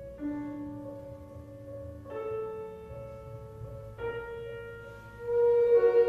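Slow instrumental background music: long held notes that change about every two seconds, swelling louder near the end.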